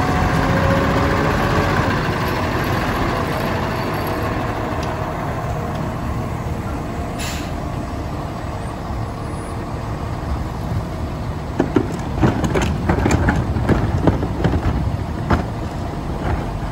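Autocar ACMD rear-loader garbage truck's engine running as the truck pulls up and stops, with a short air hiss about seven seconds in. From about two-thirds of the way through, a run of knocks and clatters as plastic garbage carts are handled at the back of the truck.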